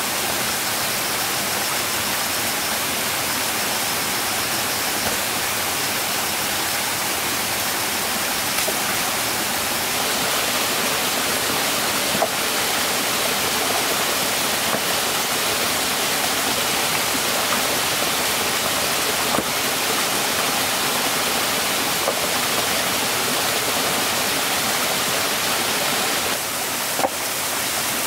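Steady rushing of water, like rain or a stream, with a few faint clicks. A faint high pulsing chirp runs through the first part.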